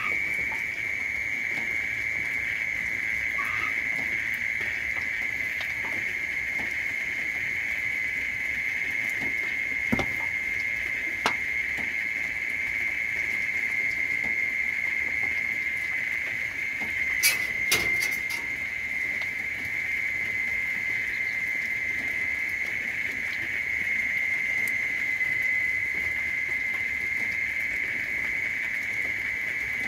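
A steady high-pitched buzz that holds one pitch throughout, with a few short clicks about ten seconds in and a small cluster of them near eighteen seconds.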